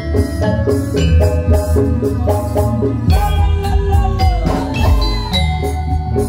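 Javanese gamelan ensemble playing jaranan music: bronze-keyed metallophones (saron) struck with wooden mallets in a quick, steady run of notes over drums and a low bass. A held, bending melody note rises above it about three seconds in.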